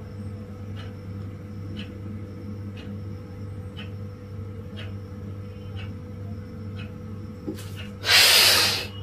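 A man's loud, hissing in-breath, under a second long near the end, drawn as he rises from a seated forward bend. It ends a breath held out after a full exhalation in bahya pranayama. Underneath runs a steady low hum with faint ticks about once a second.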